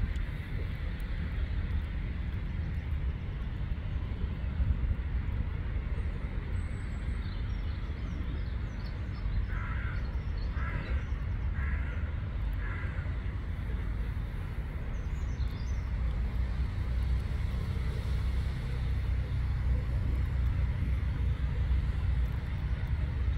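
Steady low outdoor rumble, with four short bird calls in a row about ten seconds in and a few faint high chirps.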